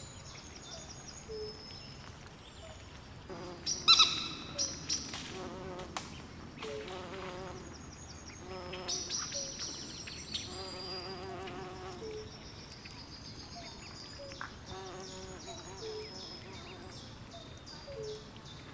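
Night swamp chorus: insects chirping in short high repeated notes, with frogs croaking in short low notes and wavering trills. A loud sharp call stands out about four seconds in, over a steady faint hiss.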